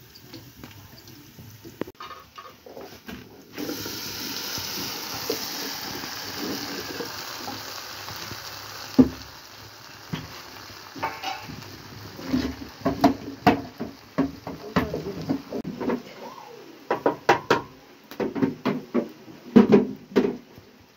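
Pot of beans boiling over a wood fire: a steady hiss sets in a few seconds in. In the second half it gives way to a run of knocks and clatter from pots and utensils at the hearth.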